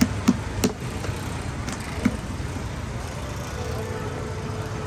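Hands slapping and patting a thin round of paratha dough on an oiled work surface: three sharp slaps in the first second and one more about two seconds in, over a steady street traffic rumble.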